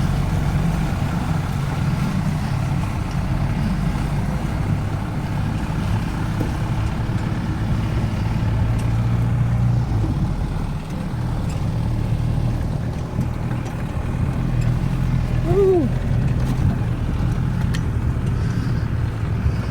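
Off-road vehicle's engine running steadily under load, heard from on board as it drives a rough track. About fifteen seconds in, a brief high tone rises and falls over the engine.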